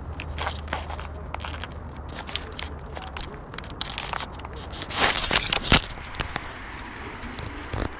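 Dry reed stems, twigs and dead leaves crackling and scraping against a camera as it is pushed through brush and picked up by hand, in many sharp clicks with a loud burst of crackling about five seconds in.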